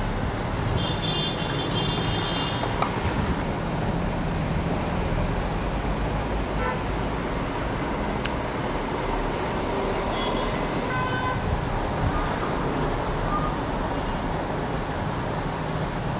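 Steady road-traffic rumble, with short vehicle horn toots about a second in and again around ten seconds in.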